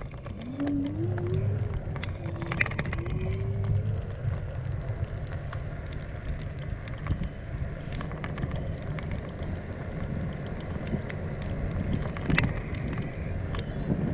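Steady rumble of tyres rolling over asphalt, with wind on the microphone and scattered rattles and clicks from the moving ride. A wavering low whine comes and goes during the first few seconds.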